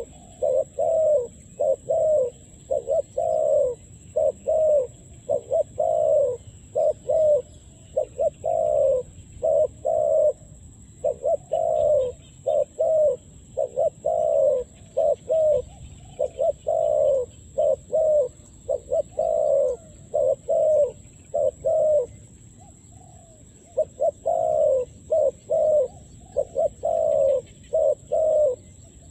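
Spotted dove cooing over and over, a steady string of short low coos at about two a second, with a break of about two seconds near the end.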